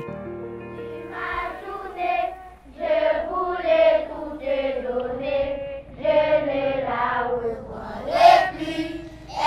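A group of children singing together in phrases, with short breaks between them. A music bed fades out in the first second.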